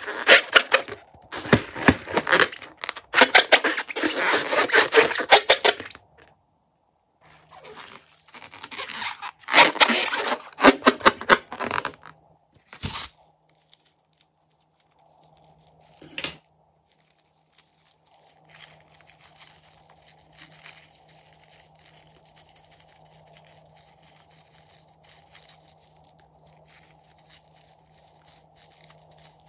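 Hands squeezing and rubbing a latex balloon, the rubber squeaking and scraping in dense bursts through the first six seconds and again from about eight to thirteen seconds in. A single sharp snip follows about sixteen seconds in, then faint crackling and rustling under a low steady hum to the end.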